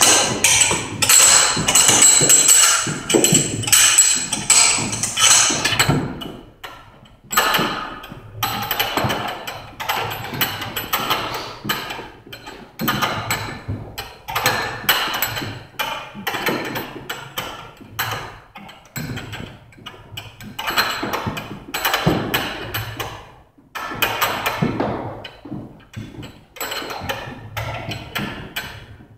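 Heavy battle ropes slapping the gym floor in a quick, uneven run of repeated strikes as they are whipped in waves, loudest in the first six seconds.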